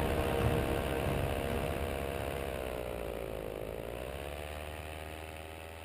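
Paramotor engine and propeller running, the pitch dipping about three seconds in and then rising back. The sound grows steadily fainter throughout.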